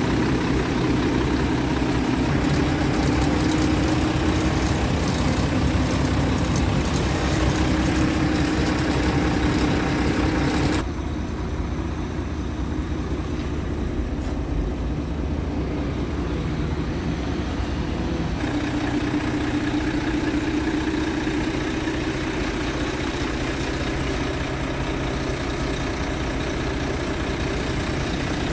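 Scania R620's 16-litre V8 diesel engine idling steadily. The sound goes duller for about seven seconds in the middle.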